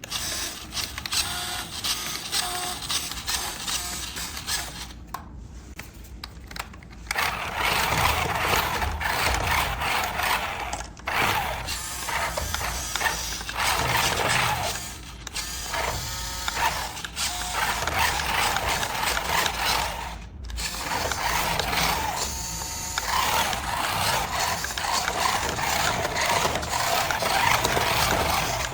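Plastic gears of a battery-powered remote-control toy running, a steady whirring clatter broken off by several abrupt cuts.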